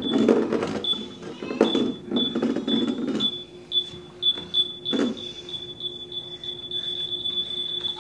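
Small Yakbot toy robot beeping: a high electronic tone in short pips, about two a second, that run together into one steady tone for the last couple of seconds, over a faint low hum. Rustling handling noise in the first three seconds and a single click about five seconds in.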